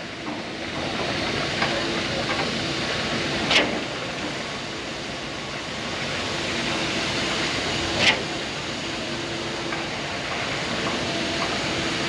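Truck-mounted concrete boom pump running while pumping concrete through its boom and end hose: a steady mechanical drone, with a short sharp burst twice, about four and a half seconds apart, as the pump changes stroke.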